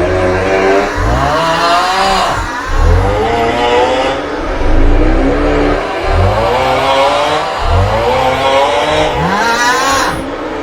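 The 'aughhhh' snoring meme sound looped: a loud, wavering, groaning snore-like 'aughhh' over heavy bass, repeating about every two seconds.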